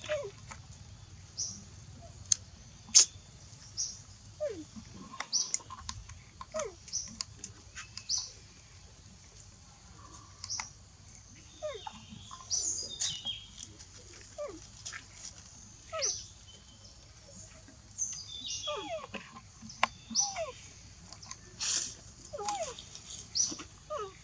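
Short high chirps and squeaks, with quick falling calls, repeated irregularly every second or so.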